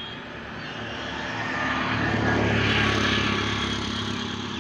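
A motor vehicle passing by on a road, its engine noise swelling to a peak about halfway through and then fading away.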